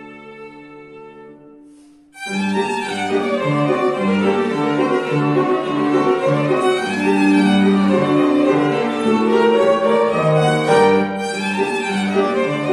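Violin with grand piano accompaniment: a held chord fades away, then about two seconds in both come back in loudly with a busy passage of short notes.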